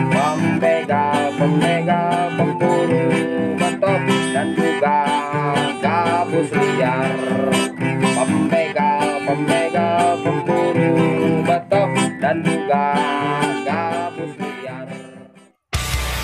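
Background music led by plucked guitar, fading out near the end. It gives way abruptly to a steady rushing noise.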